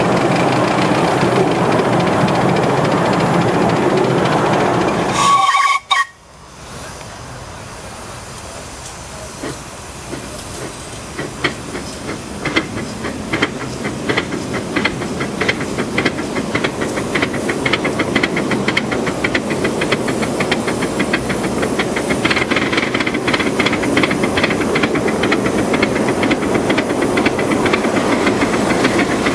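Live-steam model of a South African Railways Class 15F locomotive hauling nine loaded passenger trolleys. Steam hisses loudly while it stands, and a short whistle toots about five seconds in. After a break, its exhaust beats start faint and grow steadily louder and quicker as it pulls away.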